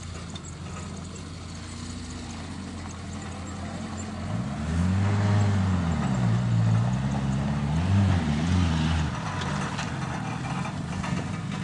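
Small Suzuki 4x4's engine running as it drives over rough ground, steady at first, then revving up and down several times from about four seconds in.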